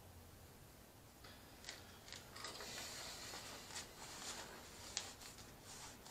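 Faint rubbing and rustling of a microfiber cloth wiping out a funnel, starting about a second in, with a few light clicks of the funnel being handled.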